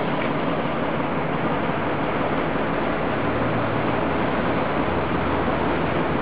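Trieste–Opicina tram pushed by its cable-hauled pusher car on the cable-worked section, the two rolling slowly along the rails together: a steady rolling noise, with a low hum coming and going in the second half.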